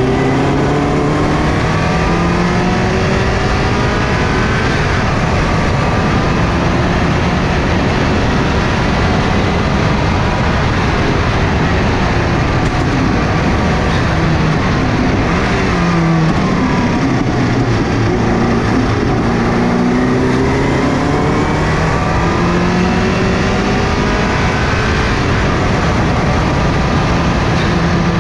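Subaru GC8 Impreza rally car's flat-four engine accelerating hard at speed, over steady road and wind noise. Its pitch climbs in repeated sweeps through the gears, drops once about halfway through, then climbs again.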